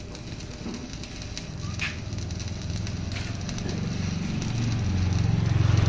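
Stick-welding arc crackling over a low machine hum that grows steadily louder.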